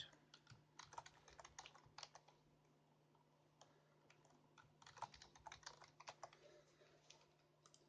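Faint computer keyboard typing in two runs of keystrokes, one over the first two seconds and another around five to six seconds in, with a few single key presses between, as account details are typed in.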